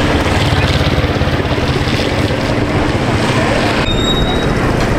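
A small engine running steadily with a fast, even low throb.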